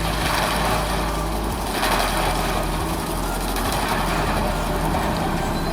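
Diesel engine of a heavy land-clearing machine running steadily under load, with a surge of rough noise about two seconds in.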